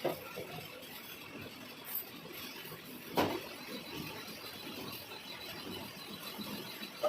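Metal lathe running while cutting a thread in a cast iron nut: a steady hiss of machining broken by a few sharp clinks, the loudest about three seconds in.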